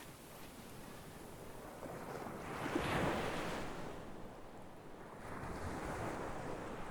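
Sea waves washing in, one swell building to a peak about three seconds in and a second, softer one near the end.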